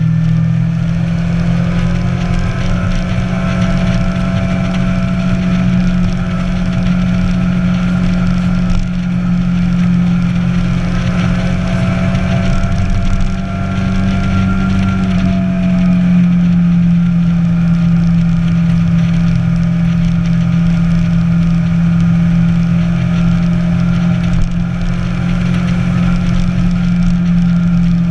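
Inline-four sport motorcycle engine running at a steady cruising speed during a ride, its note holding even with a slight change in pitch about halfway through.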